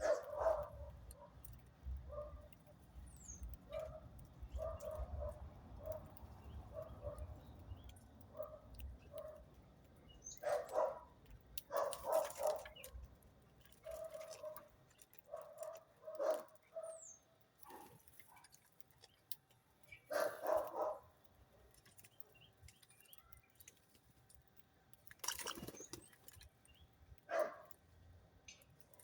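Birds calling in many short repeated notes, with several louder calls scattered through.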